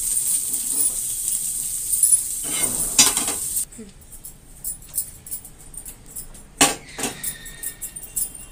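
Sautéed vegetables sizzling in a hot non-stick kadhai. The sizzle cuts off suddenly after about three and a half seconds as the pan is lifted off the flame. A few sharp knocks and scrapes follow as a silicone spatula tips the vegetables out onto a plate.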